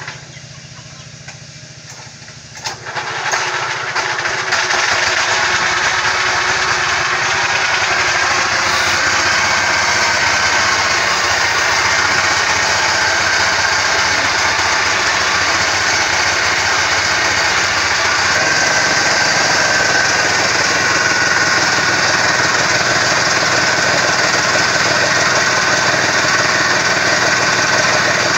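A small engine catches about two and a half seconds in and runs up to a loud, steady speed, driving a grinding mill that material is being fed into.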